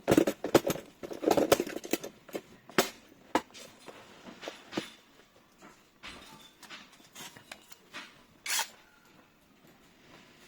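Sharp clicks and knocks of small metal lock parts and hand tools being handled, crowded together in the first two seconds, then scattered, with one louder knock near the end.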